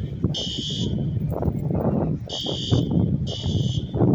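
Fire alarm horn sounding the three-beep evacuation pattern: harsh buzzing beeps about a second apart, here one beep, a pause of about a second and a half, then two more beeps.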